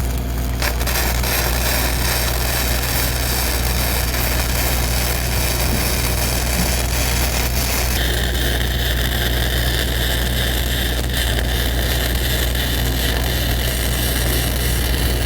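The Lincoln Dual Maverick 450's water-cooled Perkins diesel engine runs steadily under welding load, with a dense hiss and crackle of welding arcs over it. The character of the arc noise shifts about halfway through.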